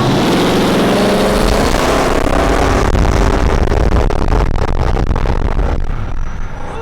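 Pickup truck engine at full throttle in a street race, climbing in pitch after a gear change near the start, then easing off in the last couple of seconds.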